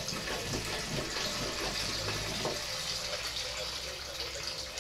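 Water running steadily from a kitchen tap into a pot of rinsed pearl barley, filling it for soup.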